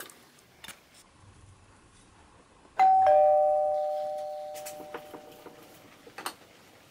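A two-note 'ding-dong' chime like a doorbell sounds about three seconds in, higher note then lower, and rings out fading over about three seconds. A few light clinks come before and after it.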